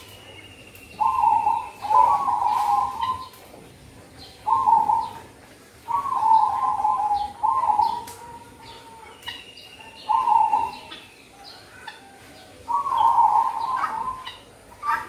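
Zebra dove (perkutut) cooing: rolling coos come again and again, each about a second long, with short pauses between them. Faint high chirps from other small birds sound alongside.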